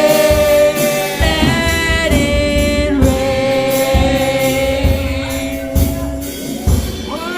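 Live gospel worship music with long, held sung notes and low beats underneath.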